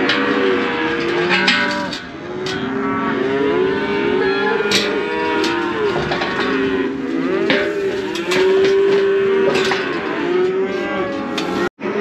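Cattle crowded in a branding chute bawling, many calls overlapping one another without a break, with a few sharp knocks among them. The sound cuts out for an instant near the end.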